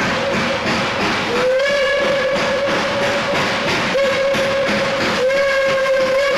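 Steam locomotive's chime whistle sounding a series of long blasts as the train approaches, each blast opening with a slight upward slide in pitch, over the noise of the moving train.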